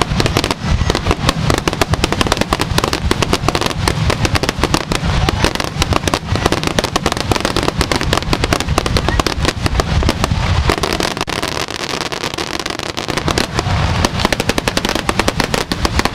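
Aerial fireworks fired in a dense barrage, shells launching and bursting in quick succession. The bangs and crackles run almost without a gap, thinning briefly about two-thirds of the way through.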